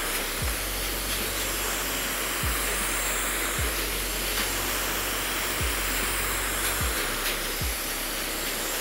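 Handheld hair dryer blowing steadily, a constant airy hiss, with a few low thuds of background music underneath.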